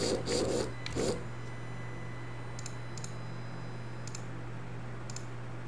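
Small brushed DC gear motor whirring in short back-and-forth bursts, about three a second, as its closed-loop position controller drives it. The bursts stop about a second in, leaving a steady low hum and a few faint clicks.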